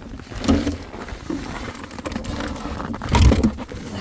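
Wind buffeting the microphone in gusts, a low rumble that swells about half a second in and hardest around three seconds in.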